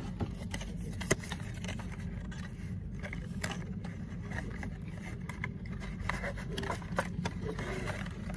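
Cardboard packaging being handled: an earpiece box's inner tray slid out of its red cardboard sleeve, with light scraping and a few scattered taps and clicks on the desk, the sharpest about a second in, over a steady low hum.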